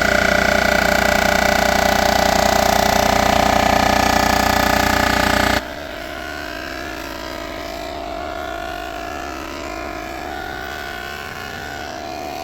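Cylinder head surfacer running on an aluminium cylinder head, a loud steady machine hum with several held tones. About five and a half seconds in it drops abruptly to a quieter, wavering machine sound.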